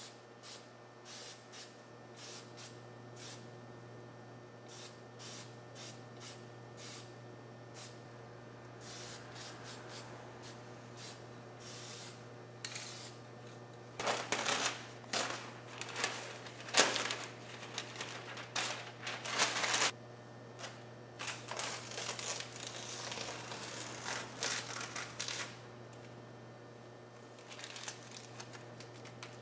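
Masking paper and tape crinkling and rustling as hands press and smooth them, in scattered short bursts that grow denser and louder about halfway through, over a steady low hum.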